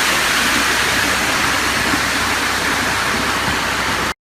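Concrete mixer truck running while wet concrete pours down its chute into a footing form: a steady rushing noise over a low engine hum, cut off abruptly near the end.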